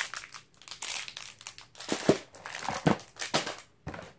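Plastic packaging bags crinkling in irregular bursts as small bagged toy parts are handled and pulled out of a cardboard box.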